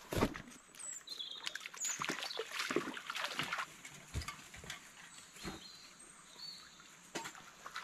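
Footsteps of a person and a dog on creek stones and dry leaf litter: irregular crunching, scuffing and knocks, busiest in the first half. A few short high chirps sound over them.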